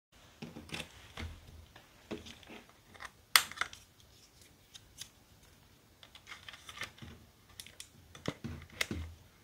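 Scattered plastic clicks, taps and rustles from handling a Panasonic Lumix DMC-FZ300 camera, turning it over with its battery and SD card door open and an SD card in hand. The sharpest click comes about three and a half seconds in, with a few dull thumps of the camera body being handled.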